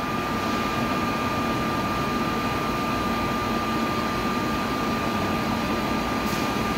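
Seoul Subway Line 3 electric train standing at the platform with its doors open: a steady hum and whoosh of its running equipment, with a thin high whine.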